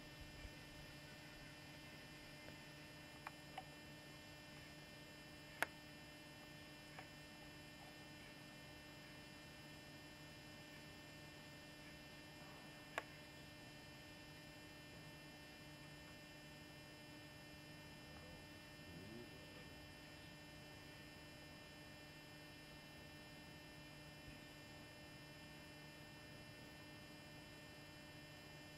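Near silence: a steady low electrical hum, with a few faint sharp clicks, the clearest about five and a half and thirteen seconds in.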